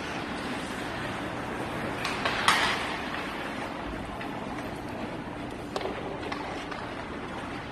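Ice hockey play in a large, near-empty rink: a steady wash of skating and arena noise, with a sharp crack of a stick hitting the puck about two and a half seconds in and a lighter knock near six seconds.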